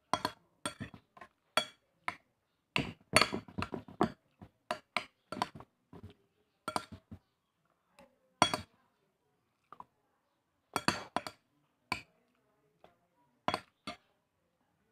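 Metal spoon clinking and scraping against a bowl while eating, in quick, irregular strikes that come thick in the first half and thin out later.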